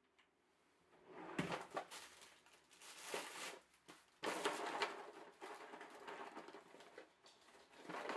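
Irregular bursts of rustling and crunching close to the microphone, coming in clusters with sharp crackly peaks.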